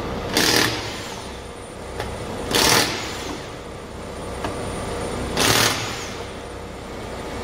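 Impact wrench undoing the van's 17 mm front wheel nuts: three short bursts about two and a half seconds apart, each trailing off in a falling whine as the tool spins down.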